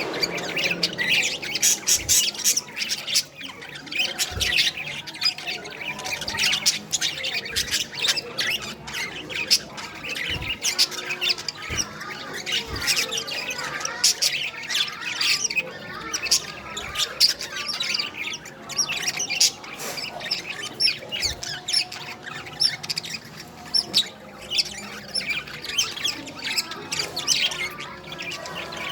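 A flock of pet budgerigars chattering continuously: a dense stream of quick chirps and squawks over a wavering warble.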